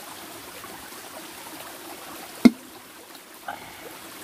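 Small mountain stream trickling steadily over rocks, with one sharp knock about halfway through.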